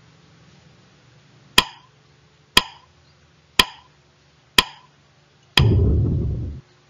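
Countdown timer sound effect: four short ticks one second apart for the last seconds of the count, then a low buzzer sounding for about a second as the count hits zero, ending abruptly.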